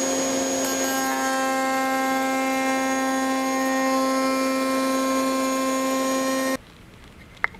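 Triton 3-1/4 HP router in a router table spinning a 22.5° lock miter bit at speed while a hardwood board is fed past it, cutting the tongue profile: a steady, high whine with several fixed tones. It stops abruptly about six and a half seconds in, followed by a single faint click near the end.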